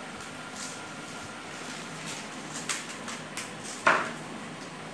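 Dried maize being shelled by hand into a plastic tub: a steady faint rustle of kernels rubbed off the cobs, with scattered clicks and knocks. The loudest knock comes just before four seconds in.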